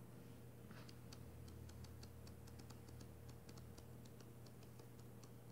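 Paperback book pages flicking off a thumb as the book is riffled through: a run of faint, quick ticks starting a little under a second in, over a low steady hum.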